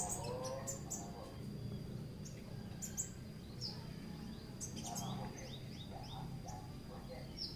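Songbirds chirping in short, sharp, quickly sweeping calls scattered through, over a thin steady high whine and a low background hum.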